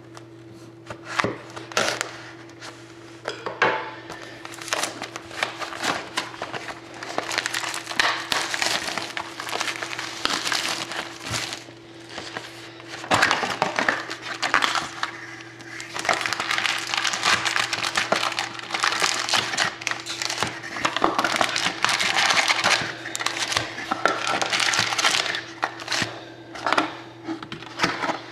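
Knife slitting the shrink wrap on a sealed trading-card box, then the cellophane crinkling and tearing as it is pulled off, and foil card packs rustling as they are taken out and laid down, all in irregular bursts over a steady low hum.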